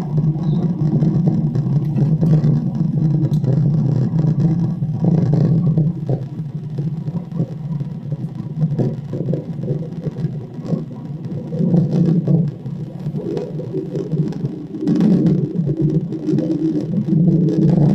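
Recorded engine rumble played back: a steady low hum with a wavering mid-range, easing off about six seconds in and swelling again near twelve and fifteen seconds.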